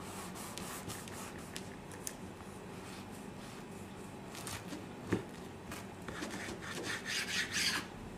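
A kitchen knife sawing through a toasted burger bun and chicken patty on a wooden chopping board: faint rasping strokes with small clicks, busier and a little louder in the second half, and one soft knock about five seconds in.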